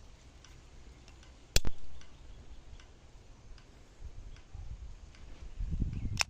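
Old Rossi .22 LR garrucha: faint small clicks of handling, and one sharp crack with a brief ring about a second and a half in.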